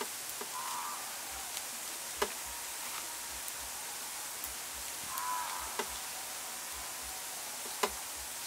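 A steady hiss with a few light clicks and taps from raw snake pieces being threaded onto bamboo skewers over a metal tray. A short warbling sound comes twice, about a second in and about five seconds in.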